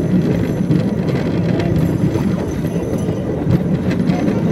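Cambodian bamboo train (norry) running along the rails: a steady motor drone mixed with the rattle of the bamboo platform and wheels on the track, with scattered clicks.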